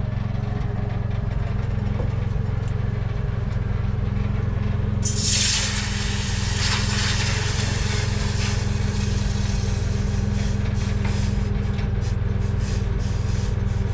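Generator engine running with a steady hum. About five seconds in, a sudden loud hiss starts and fades away over the next few seconds.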